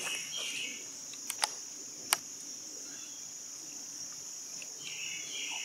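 Steady high-pitched chorus of summer insects in the woods, with a few small sharp clicks between about one and two seconds in.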